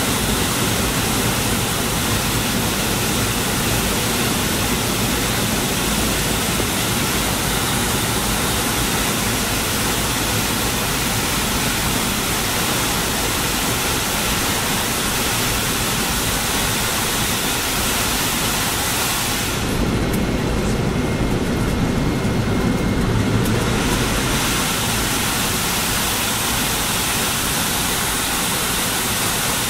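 Cabin noise inside a McDonnell Douglas MD-80 on approach: a steady rush of airflow and jet-engine noise from its tail-mounted engines. About two-thirds of the way through, for some four seconds, the hiss dulls and a deeper rumble swells slightly.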